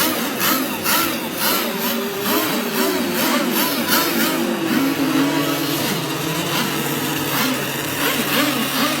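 Twin 30cc two-stroke gas engines of an RC twin-rigger boat running, their pitch swooping up and down about twice a second for the first few seconds, then holding steadier with a wavering drone.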